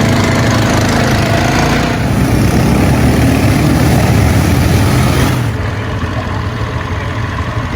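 ATV quad bike engine running under throttle as the bike moves off. About five and a half seconds in it gets quieter and duller.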